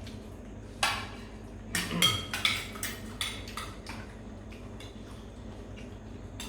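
Tableware clinking and knocking at a meal, a quick cluster of sharp clinks about a second in and fainter ones after.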